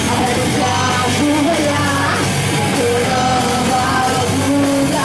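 Loud rock music: a full band playing, with a singer holding long notes.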